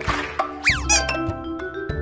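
Cheerful children's background music with a xylophone-like mallet melody over bass notes, with a short whoosh at the start and a quick whistle-like glide that rises and then falls a little over half a second in, a cartoon transition effect.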